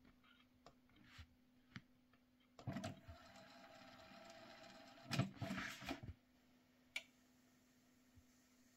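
Sony TC-K970ES cassette deck's tape transport starting up after play is pressed: a few soft button clicks, then a little under three seconds in a motorized whir that runs for about two seconds, followed by a cluster of mechanical clunks and a single click about seven seconds in.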